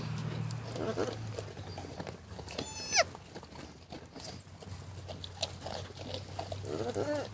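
Pygmy goats bleating: one short, high-pitched bleat about three seconds in, the loudest sound, with softer, lower calls about a second in and again near the end. A steady low hum runs underneath.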